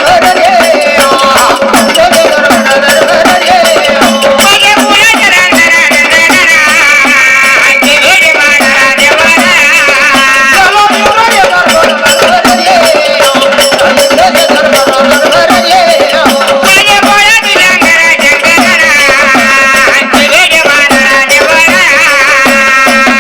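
Devotional folk song: a singer's voice rising and falling over a steady held drone note, with a fast, dense beat of hand drum and small cymbals.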